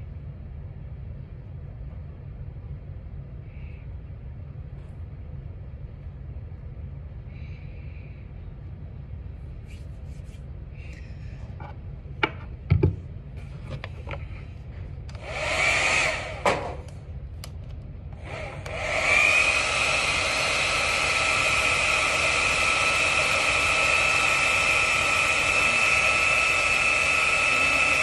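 Handheld blow dryer switched on for a short blast, then running steadily with a rushing air noise and a steady whine through the last nine seconds or so, drying liquid latex on the skin. Before it, a couple of sharp knocks over a low steady hum.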